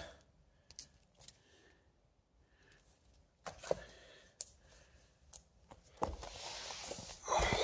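Comic books being handled and shuffled: a few faint taps and clicks, then a longer rustle near the end.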